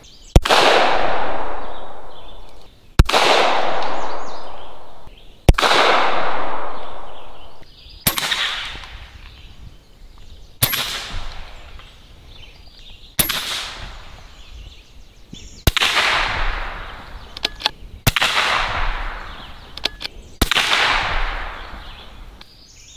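Shots from .30-calibre Gamo Gauntlet PCP air rifles and a .22 LR rifle fired over a chronograph, about nine in all, roughly every two and a half seconds. Each is a sharp crack followed by a long fading echo; the first few are the loudest.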